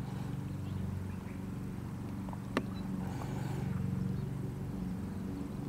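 A steady low motor hum, like an engine running nearby. A single sharp click comes about two and a half seconds in, and a brief rustle follows soon after.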